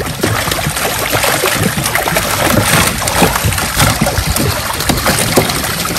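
A netful of fish thrashing in shallow water: dense, continuous splashing made up of many quick, overlapping slaps.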